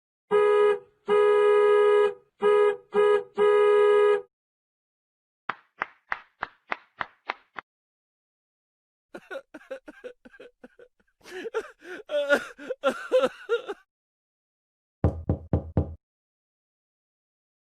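A string of separate comedy sound effects: about five pitched horn-like honks, then a quick run of about eight knocks, then a busy jumble of sounds, and a short burst of low thumps near the end.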